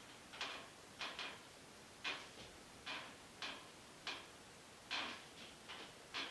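Slow, uneven footsteps of a person walking on an injured, bandaged knee: a short scuff or tap every half second to a second, some coming in quick pairs, as the weakened leg falters.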